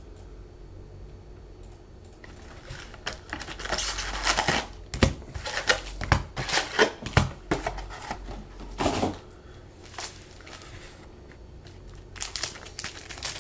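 Trading card pack wrappers crinkling and tearing as packs are opened and cards handled: a run of irregular crackling rustles starting about two seconds in, pausing briefly, then picking up again near the end.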